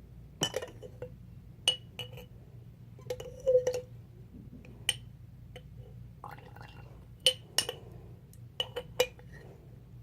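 A spoon clinking irregularly against a glass container while stirring thick, sticky slime: about a dozen sharp clinks with short ringing, in uneven bursts.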